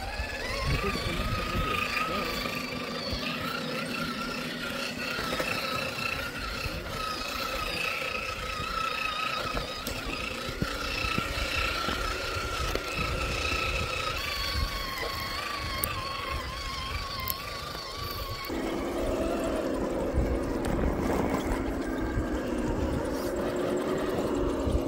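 Electric motor and gearbox whine of RC scale crawler trucks crawling slowly over rocks: a steady, slightly wavering high whine that drops a little about two-thirds through, then changes abruptly to a lower whine near the end.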